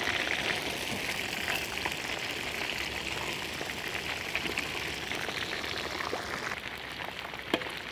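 Whole rabbits deep-frying in a large iron kadai of hot oil: a steady sizzle full of small crackles that eases slightly near the end. A single sharp click comes near the end.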